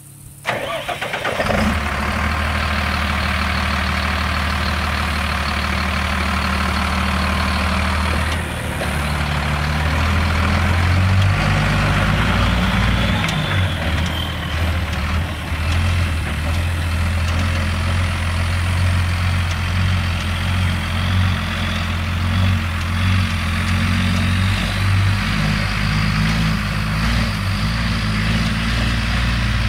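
A Mercedes-Benz MBE900 6.4-litre inline-six turbo diesel truck engine starts about half a second in, then runs at a steady idle. The idle speeds up for a few seconds around ten seconds in before settling back.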